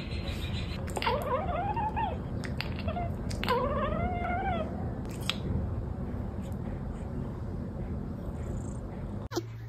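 Domestic cat chirping and chattering: two warbling bouts, one about a second in and a longer one around three and a half seconds in, then only a few faint clicks.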